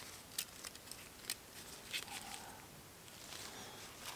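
A few faint, light metallic clicks as a piston ring for a 1.9 TDI PD engine is spread with piston ring pliers and eased onto the piston.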